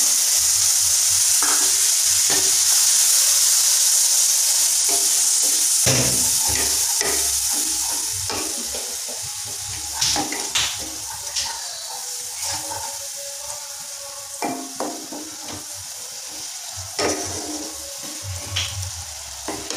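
Hot spiced masala sizzling in a non-stick kadai as whisked sour curd is poured in, the hiss fading after about eight seconds. A wooden spatula then stirs the curd into the masala, scraping and knocking the pan every second or two.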